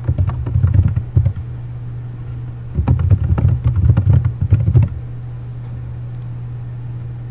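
Typing on a computer keyboard: two quick runs of keystroke clicks, the second starting about three seconds in, over a steady low electrical hum.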